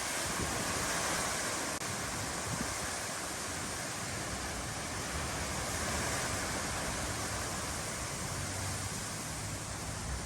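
High wind blowing as a steady rush, with an uneven low rumble from gusts on the microphone.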